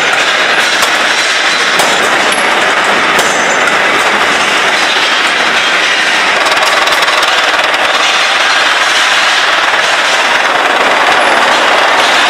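Loud, steady factory noise: machinery running with dense, continuous metallic rattling and clatter from steel bar stock and cut billets being handled.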